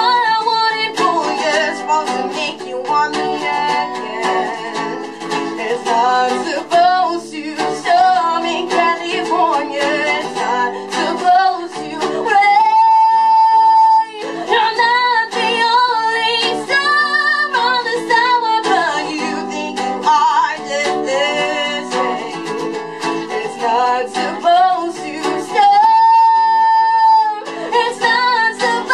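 A woman singing live to an acoustic guitar accompaniment. She holds a long note twice, about halfway through and again near the end.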